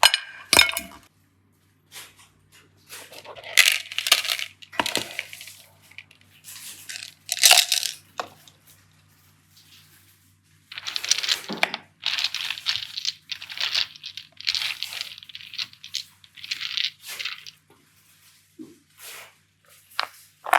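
Handling noise from slime and clay play: short bursts of crinkly rustling and clinking, in a busier run through the second half.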